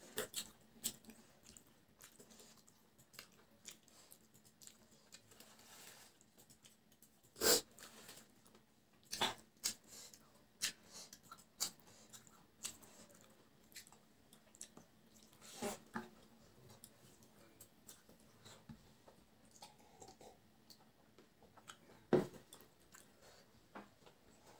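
Close-miked sounds of a person eating rice and curry by hand: faint chewing and mouth smacks, with scattered sharp clicks from fingers on the plate, a few of them louder.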